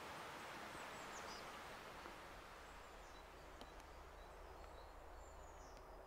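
Faint outdoor ambience: a soft, even hiss with a few brief, high chirps from small birds.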